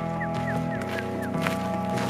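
Background music: the instrumental stretch of a song between two sung lines, with a steady sustained backing. Within the first second come four short, high, falling chirps.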